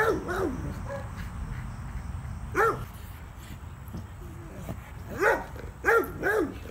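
Black Labrador giving short, sharp barks, each rising and falling in pitch: two at the start, one about two and a half seconds in, and three in quick succession near the end.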